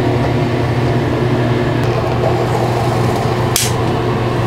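Bathroom exhaust fan running with a steady hum. A short hiss cuts in about three and a half seconds in.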